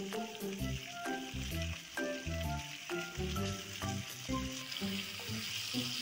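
Catla fish pieces sizzling steadily as they fry in mustard oil in a wok on medium heat. Background music with a regular beat plays throughout.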